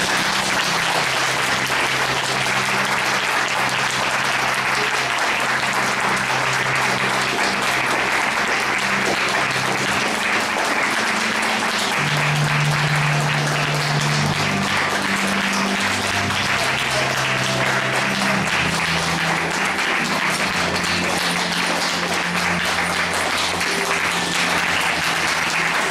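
Audience applauding steadily over music, with sustained low notes in the music that change every few seconds.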